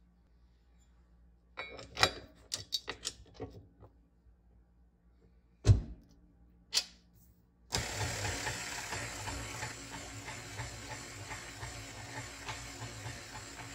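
KitchenAid stand mixer being readied and started: a run of clicks and two knocks as the flat beater is fitted and the head lowered, then about eight seconds in the motor starts and runs steadily, the flat beater turning through dry flour.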